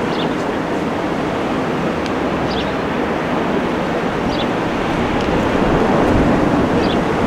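Airbus A350-1000's two Rolls-Royce Trent XWB turbofans heard in flight as a steady, rushing jet noise, growing a little louder near the end as the airliner banks toward the listener.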